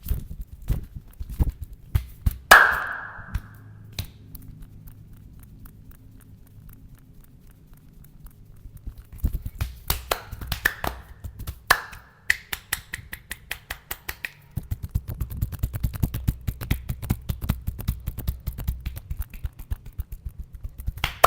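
Rapid, rhythmic slapping and tapping of a hand massage on the body, in quick runs of strikes, with a few louder sharp snaps that ring briefly, the loudest about two and a half seconds in.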